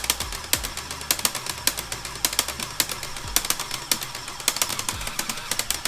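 Lego Technic 42113 Osprey's motorised gearbox driving the propellers, giving a fast, irregular stream of plastic clicking and rattling. It sounds not quite right: the builder puts it down to a design flaw in the compact gearbox, whose small 8-tooth gears are heavily loaded.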